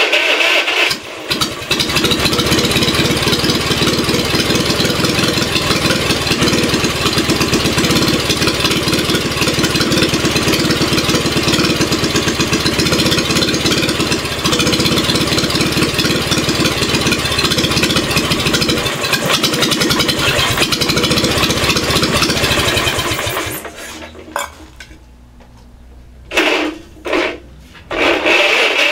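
Electric starter cranking a Wisconsin THD two-cylinder air-cooled engine on its first cold start in about twenty years; it catches within about a second and runs for some twenty-two seconds before dying. Near the end the starter cranks three more short times. The engine has no carburetor and runs on gasoline drizzled into the intake, and the owner expects it to fire on only one cylinder because of a bad exhaust valve.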